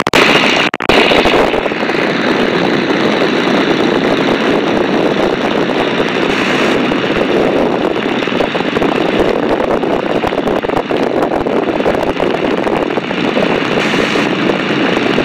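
Tiger Moth's de Havilland Gipsy Major four-cylinder inverted inline engine running steadily in flight, blended with the rush of slipstream wind in the open cockpit. The sound cuts out briefly just under a second in.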